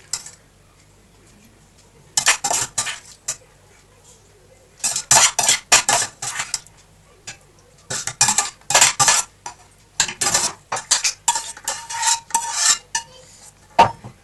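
Metal spoons scraping and clinking against a stainless steel mixing bowl as sauced pasta is scooped out, in several bursts of quick scrapes with short pauses between.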